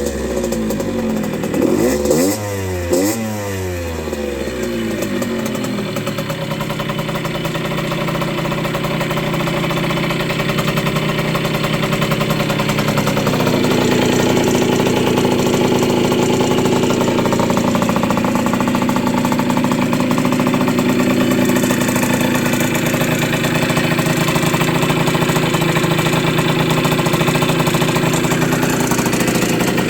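The single-cylinder two-stroke engine of a 1980 Yamaha YZ50G minibike is blipped a few times at the start, then settles into a steady idle that grows a little louder about halfway through.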